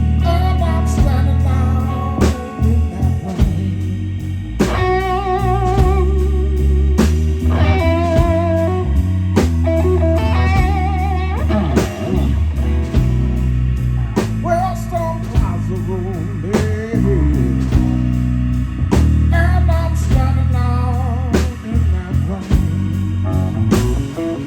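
Live blues band playing a slow blues: an electric guitar lead with wavering, bent notes over bass guitar and drums.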